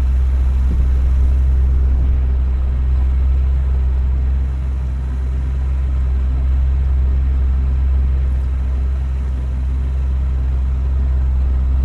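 Small fishing boat's engine running steadily at low speed: a deep, even hum that eases slightly about four and a half seconds in.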